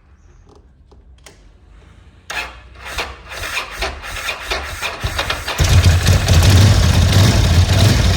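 Ducati S2R 1000's air-cooled L-twin engine cranked on the electric starter about two seconds in, then catching a few seconds later and running loudly: its first start after new cam belts were fitted.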